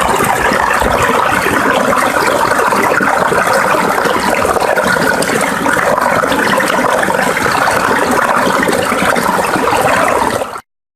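Small taiga forest stream babbling, a steady rush of flowing water that cuts off abruptly near the end.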